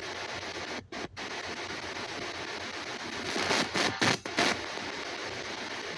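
Spirit box radio scanner sweeping the band: a steady hiss of static, cut by two brief dropouts about a second in, with louder crackling bursts between about three and four and a half seconds in.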